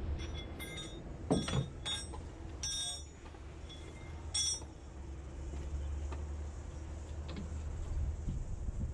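A glass balustrade panel being handled into its metal fittings: a series of sharp clinks and knocks with a brief bright ring, bunched in the first few seconds, over a steady low rumble.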